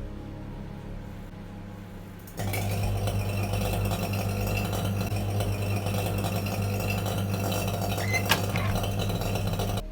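Panasonic microwave oven running: a steady hum that jumps to a much louder hum with a hiss about two and a half seconds in, as the heating switches on, then cuts off suddenly just before the end. A short click comes about a second before it stops.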